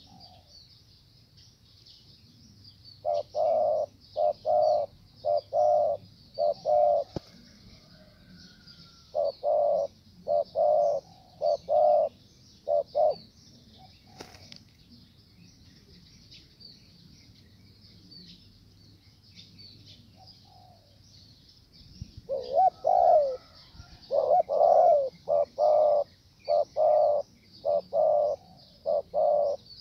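Male spotted doves cooing in three bouts of short, evenly repeated notes. Between the bouts there is a single sharp wing flap near the middle, as two males face off in a territorial fight.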